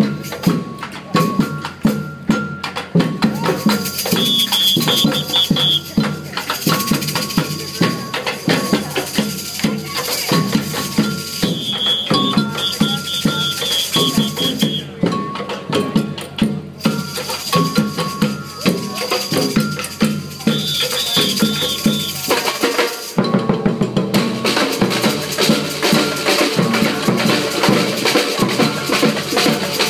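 Samba percussion band (batucada) playing a driving rhythm on big surdo bass drums, snares and shakers. The rhythm changes about 23 seconds in.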